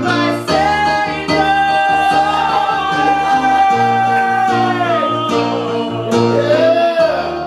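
Live show-tune singing with instrumental accompaniment. A singer holds one long note for about four seconds, letting it bend down at the end, then sings a short closing phrase over repeated chords.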